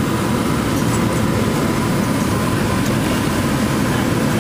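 Steady low rumble of street traffic, with a faint click of metal tongs against the aluminium wok about three seconds in.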